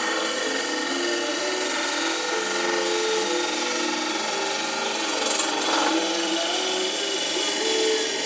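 Wood lathe running while a turning tool cuts a long, thin wooden spindle: a steady scraping hiss of the cut, with tones that shift in pitch as the tool moves along the spindle and a brief sharper scrape about five seconds in.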